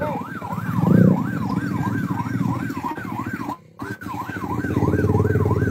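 A siren yelping, its pitch sweeping rapidly up and down about two and a half times a second, over the low running of a motorcycle engine close by. Everything cuts out briefly a little past the middle.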